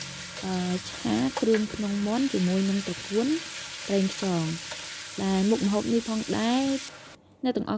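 Chicken offal and water spinach frying in a steel wok, sizzling steadily while a metal spatula stirs and tosses them. Short pitched vocal phrases run over it, and the sizzle cuts off suddenly about seven seconds in.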